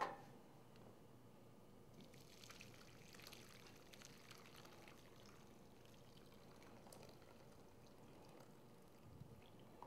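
Freshly made dashi broth being poured off through a strainer, heard as a faint trickle of liquid from about two seconds in that thins out after about seven seconds.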